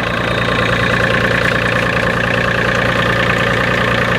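The TYM tractor's small Mitsubishi three-cylinder diesel idling steadily just after being started.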